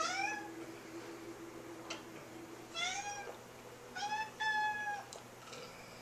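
Domestic cat meowing off-camera, three calls with rising pitch, the last one longer and drawn out.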